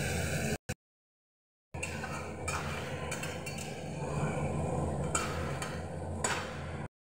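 Metal ladle scraping and clinking against an aluminium kadhai as eggplant pieces are stirred over a gas flame, with a few sharp clatters over a steady hiss. The sound drops to dead silence twice, briefly about half a second in and again just before the end.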